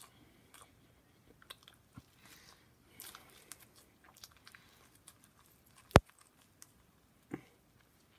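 A person chewing pizza close to the microphone: soft, irregular chewing and mouth noises, with one sharp click about six seconds in and a short thump a little later.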